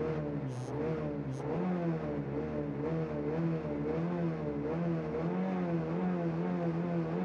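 Citroën Saxo VTS rally car's 1.6-litre four-cylinder engine held at fairly high revs while stationary at a stage start, the pitch wavering up and down about once a second as the driver works the throttle before launching.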